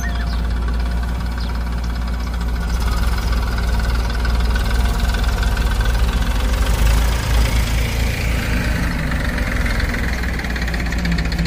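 Diesel engine of a JCB 3DX backhoe loader running steadily under load as the backhoe digs, its note rising about eight seconds in.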